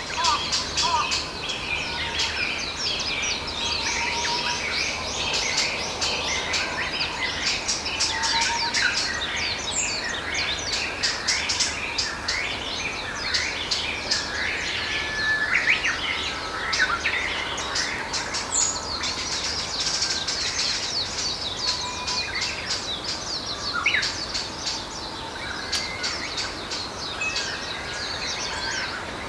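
Forest ambience: a dense chorus of many birds chirping and trilling at once over a steady background hiss.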